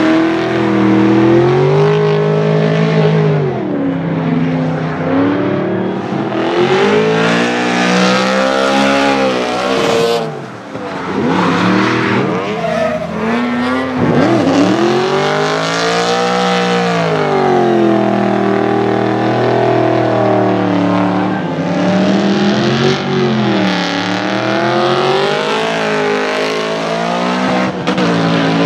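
Supercharged BMW M3 E92's V8 engine revving hard while drifting, its pitch rising and falling over and over as the throttle is worked, with tyre noise from the sliding car.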